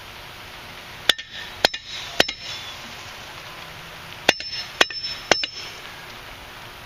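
A steel piece is struck sharply six times, metal on metal, each hit ringing briefly. The hits come in two sets of three, about half a second apart.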